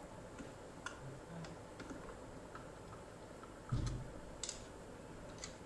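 Scattered light clicks and taps from hands handling a small screwdriver and electrical wires, with one dull knock a little before four seconds in, the loudest sound.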